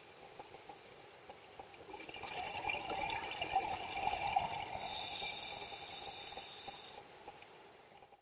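Underwater sound of a scuba diver breathing through a regulator, with exhaled bubbles rushing. It swells about two seconds in and eases off near the end.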